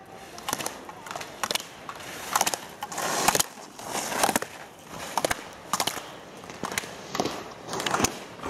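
Slalom skis carving turn after turn on hard-packed snow: a rhythmic scraping swish about once a second as the edges bite, with sharp clacks of slalom gate poles being struck.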